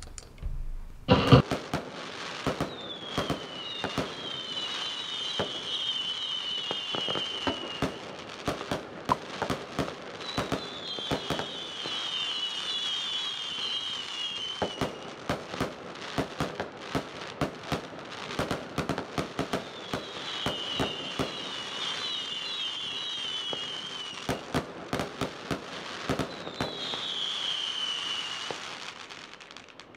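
Fireworks going off: a dense run of bangs and crackles, with four spells of many short whistles sliding down in pitch.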